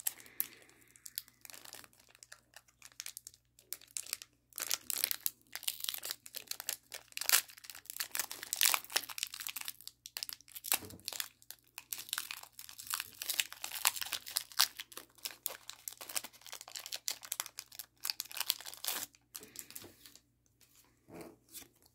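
Foil Pokémon booster-pack wrapper crinkling and tearing as it is pulled open by hand, a long run of irregular crackles that falls quiet near the end.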